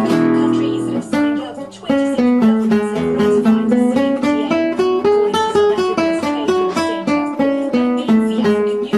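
Guitar music: a held chord, then from about a second in a melody of quick plucked single notes.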